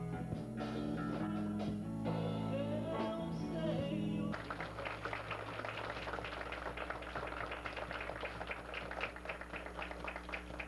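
Guitar music with sustained chords, which cuts off abruptly about four seconds in; then a crowd clapping, a dense run of many hand claps that fades near the end.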